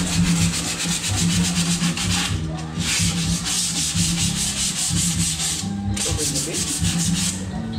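Sandpaper rubbed by hand over the wooden board panels of a homemade cabinet, in rapid back-and-forth strokes. The strokes come in three runs, with short breaks about two and a half seconds in and again near six seconds.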